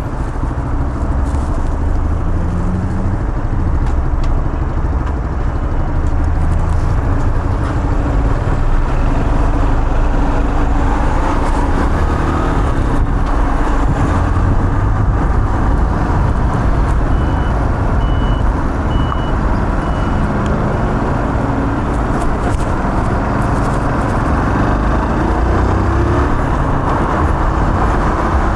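Fuel-injected 125 cc G-Moto Cross X PRO EFI moped engine running steadily under way, with a continuous road-riding rush. About two-thirds of the way through, four short high beeps sound at even spacing.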